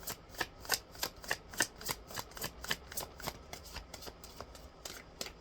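A deck of oracle cards being shuffled by hand: a steady run of quick, crisp card snaps, about four to five a second.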